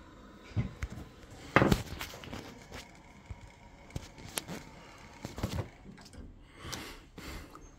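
Scattered knocks and clicks of hands handling the plastic parts and wiring connectors inside an opened gas boiler, at its pump. The loudest knock comes about one and a half seconds in.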